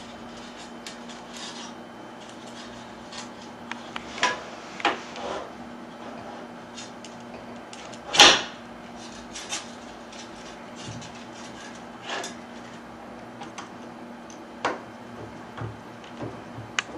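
Scattered clicks and knocks of curtain track parts being handled and fitted, the loudest about eight seconds in, over a steady low hum.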